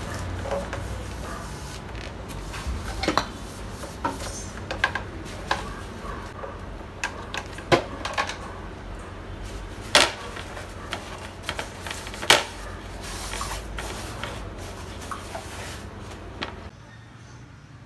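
Irregular clicks and knocks of a portable induction cooktop being handled on a counter: it is unplugged, its cord gathered, and the unit lifted and stood on its edge. A low steady hum runs underneath and drops away near the end.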